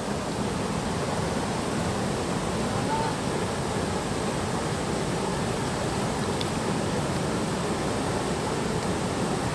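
Steady rushing of water in a mountain stream.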